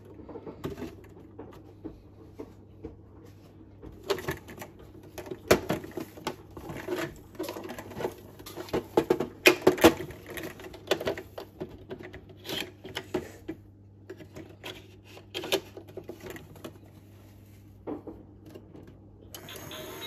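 Plastic toy washing machine being handled: irregular clicks, knocks and rattles as its door and controls are worked and it is set down on a stone counter, busiest about four to eleven seconds in.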